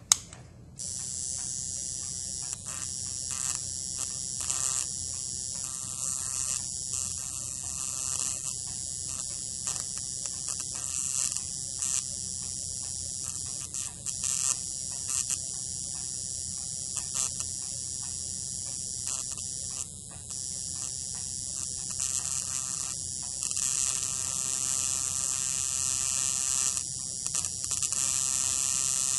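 A sharp click, then under a second later a small high-voltage transformer salvaged from an old radio, driven by a 555 timer in PWM mode through a power MOSFET, starts a steady high-pitched buzz as sparks arc between its output leads. The buzz wavers and crackles as the leads are moved, and grows louder near the end.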